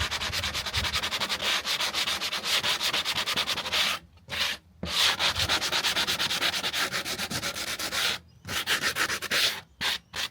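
Sandpaper rasping over the freshly cut edges of pine slats in quick, rhythmic back-and-forth strokes, stopping briefly about four seconds in and again about eight seconds in.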